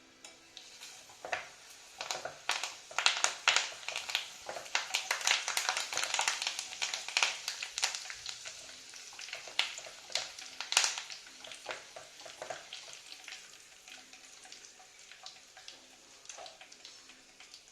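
Curry leaves crackling and spitting in hot frying oil as they are tempered: a dense run of sharp pops that starts about a second in, is thickest in the first half, and thins out toward the end.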